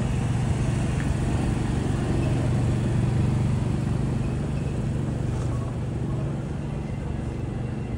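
Steady low engine drone of a motor vehicle close by, growing louder over the first three seconds and then easing off, over general street noise.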